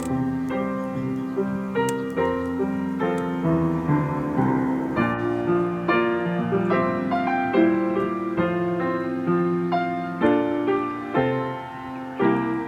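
Background piano music, a steady succession of notes and chords.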